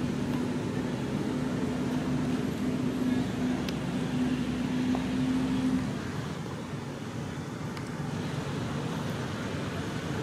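A motor runs with a steady low hum that stops about six seconds in. Low background traffic rumble carries on.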